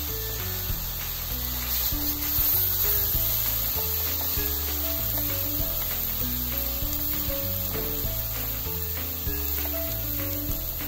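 Thin-sliced pork sizzling in hot oil in a frying pan as it is stirred and turned with chopsticks. A simple background tune of held notes plays along.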